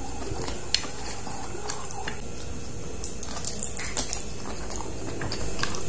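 A person chewing octopus close to the microphone: wet squishing and lip smacks with scattered sharp clicks, over a steady low hum.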